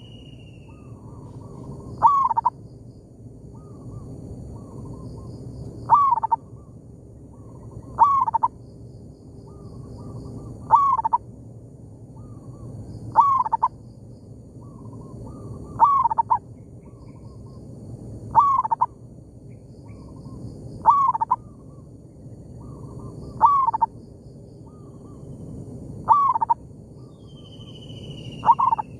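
Zebra dove cooing: a loud, short call repeated about every two and a half seconds, about eleven times. Between them, fainter coos from another zebra dove answer it. Faint high chirps of small birds sound throughout.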